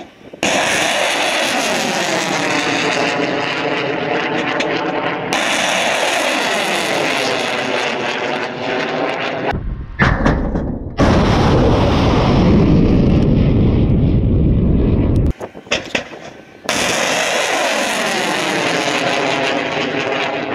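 S-400 surface-to-air missiles launching: the rushing roar of the rocket motors, its tone sweeping as each missile climbs away, cut together from several launches. A sudden, heavier blast comes about ten seconds in, and the sound breaks off briefly about two-thirds of the way through.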